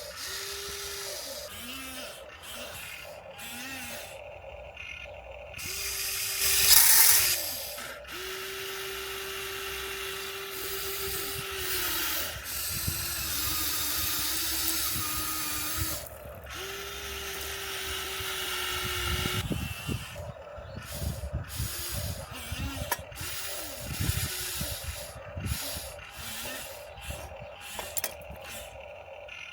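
Electric screw-drive motors of an RC model excavator whining in starts and stops as the boom and bucket are worked, each run from under a second to several seconds long, the pitch sagging as it starts and stops. Gravel scrapes and clatters as the bucket digs, most busily in the second half.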